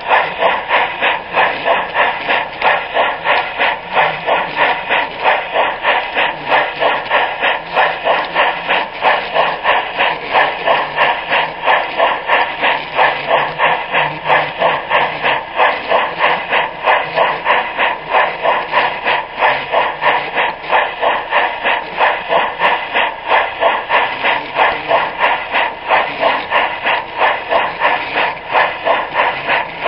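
Large-scale garden railway train running along the track, a steady rhythmic beat of about two to three pulses a second.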